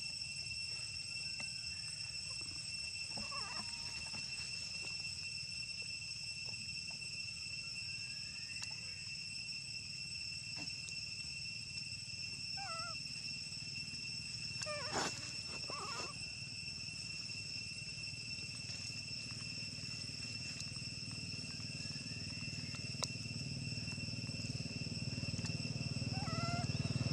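Monkeys giving short, high squeaky calls that rise and fall, a few scattered seconds apart, with a small cluster about halfway through. Under them runs a steady background of constant high-pitched ringing tones and a low rumble.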